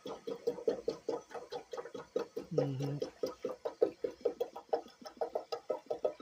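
Someone eating close to the microphone: a fast, even run of wet chewing and smacking sounds, about five or six a second, with a short low hum in the middle.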